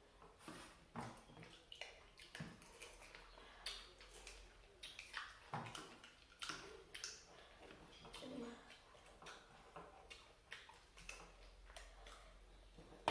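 Quiet eating sounds of prawn curry and rice eaten at close range: irregular soft clicks, lip smacks and wet chewing noises, with no steady rhythm.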